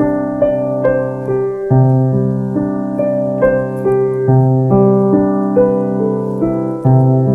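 Slow, gentle piano music: a low chord is struck about every two and a half seconds under a simple melody of single notes.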